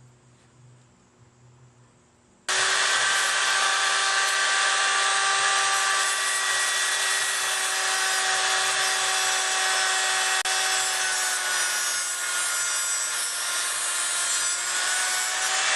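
An electric power tool starts abruptly a few seconds in and runs steadily, a high whine with several pitches over a loud rasping hiss.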